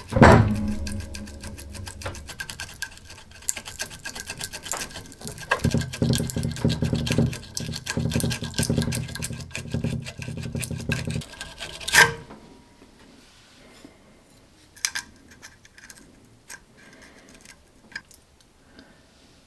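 Hand-tool work on an old screwdriver being taken apart: a long run of rapid clicking and scraping with a low hum beneath it, which cuts off sharply about twelve seconds in and is followed by a few scattered light knocks.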